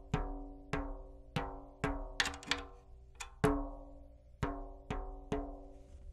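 A 10-inch tom with a new Evans clear drumhead tapped lightly near the rim, about eight taps in all, each ringing at the same pitch and fading, as the head is tuned lug by lug. A quick run of sharp clicks about two seconds in.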